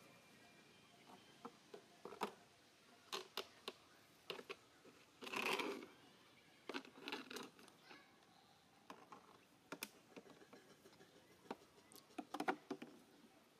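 Scattered faint clicks and smacks, with a short rustle about five seconds in and a cluster of clicks near the end.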